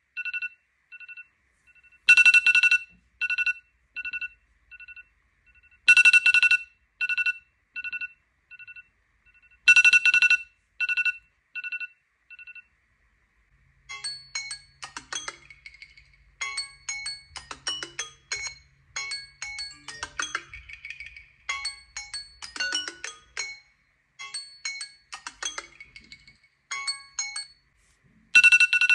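iPhone timer alarm ringing: short beeps on two pitches repeating steadily, with a louder cluster about every four seconds. About halfway through it stops and another phone's alarm plays a quick mallet-like melody of many notes, and the iPhone timer's beeping returns near the end.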